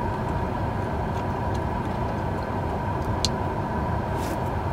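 Steady low rumble of a car idling, heard from inside the cabin, with one faint tick about three seconds in.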